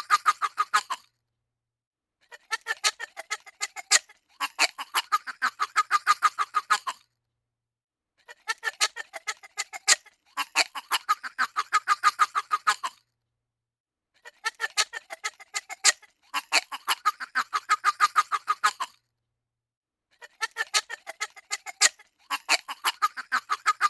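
A weird, fast squeak sound effect: quick pitched, honk-like squeaks at about five a second, in a short run followed by a longer run. The pair of runs repeats about every six seconds, with silence between.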